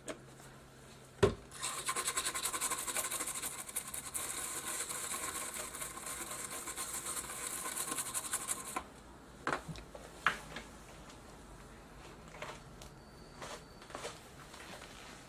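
A single sharp knock, then a brush scrubbing a circuit board with isopropyl alcohol for about seven seconds in rapid scratching strokes, cleaning the board after soldering. A few light taps follow.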